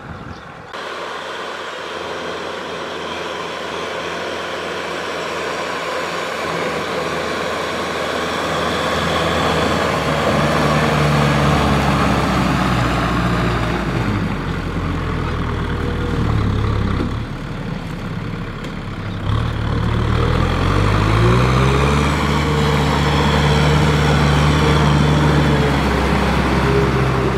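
A Kubota farm tractor's diesel engine working under load, pulling a rear rotary tiller through flooded paddy mud, and growing louder as it comes closer. The engine pitch climbs about ten seconds in, drops briefly near seventeen seconds, and climbs again around twenty seconds.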